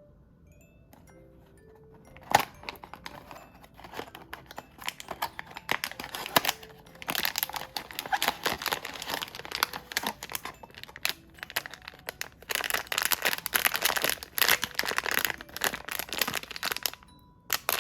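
Plastic and foil blind-box packaging crinkling and tearing as it is unwrapped by hand, after a sharp click about two seconds in. Soft, chiming background music plays underneath.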